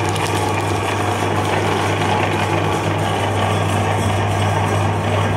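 Electric meat grinder running steadily with a low motor hum, its auger grinding frozen ice cream bars.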